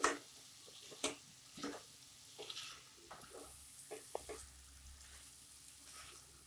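Spoon scraping and knocking irregularly in a non-stick pan as raw rice and vegetables are stirred and roasted, over a faint sizzle of frying.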